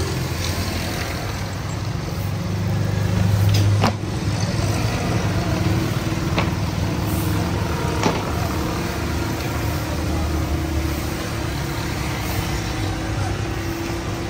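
Road traffic going past: a steady low rumble of vehicle engines that swells about three seconds in and drops off sharply near four seconds, with a few faint clicks.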